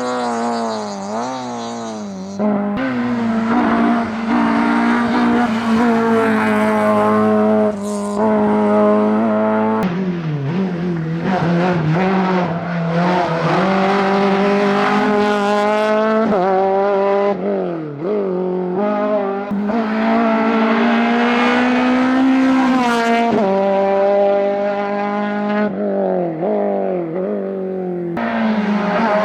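Rally cars driven flat out, engines revving high and climbing through the gears, the pitch dropping back at each shift. Several abrupt cuts from one car's pass to the next.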